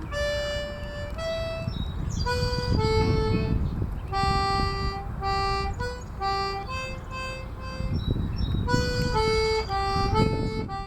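Background music: a melody of separate held notes with a reedy, harmonica-like tone, over a low rumble.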